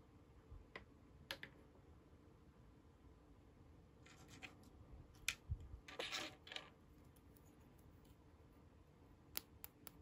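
Small plastic toy kitchen pieces being handled: a few light clicks, scratchy rustling around the middle, loudest about six seconds in, and quick clicks near the end.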